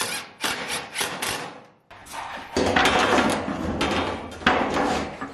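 Corrugated aluminum roofing panel being handled against a wooden roof frame: a string of metallic clanks and knocks, then from about halfway a longer loud rattling scrape as the sheet flexes and slides.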